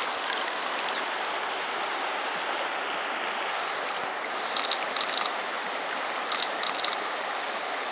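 Shallow river water running over a stony bottom: a steady rushing, with a few faint high ticks about halfway through and again a little later.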